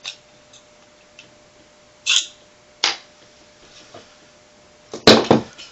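Sharp clicks and clacks of Beretta PX4 pistol parts being handled as the slide release is worked out of the frame: a few single clicks, then a louder cluster of clacks near the end.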